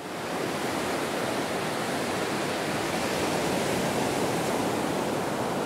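A steady, even rushing noise, fading in quickly at the start.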